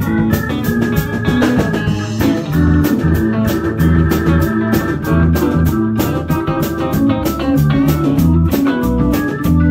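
Live blues-rock band playing an instrumental passage: drum kit with a steady cymbal beat, bass guitar, electric guitar and keyboards.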